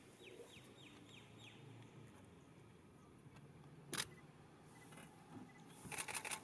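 Asian elephant drinking from a metal drum: quiet, then near the end a quick cluster of wet clicks and splashes as it curls its trunk to its mouth and squirts the water in. A single sharp click comes about four seconds in, and a quick run of high, falling chirps sounds in the first second and a half.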